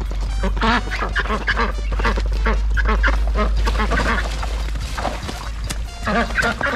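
Ducks quacking over and over, many short calls in quick succession, over a steady low rumble.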